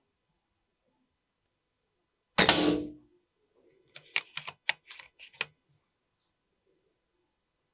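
A single shot from a BRK Ghost PCP air rifle about two and a half seconds in: a sharp crack that dies away over about half a second. About a second and a half later comes a quick run of sharp clicks as the side lever is cycled to load the next pellet.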